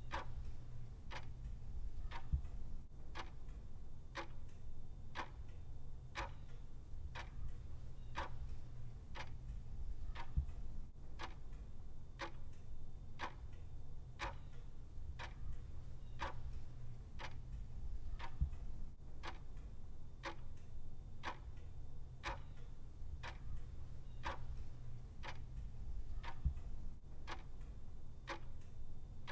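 Clock ticking steadily at about two ticks a second, over a low steady hum.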